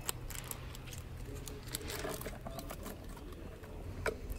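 Handling noise: light clicks and rustles of a wrapped rubber toy being handled and put into a clear plastic display bin, with a sharper click near the end, over a low steady hum.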